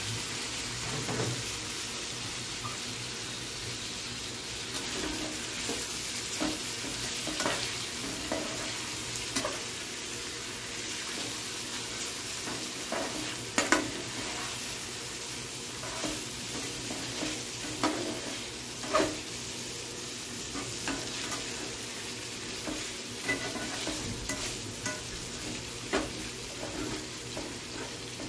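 Chicken pieces frying in masala in a pan with a steady sizzle, while a slotted metal spatula stirs them, scraping and tapping against the pan every second or two.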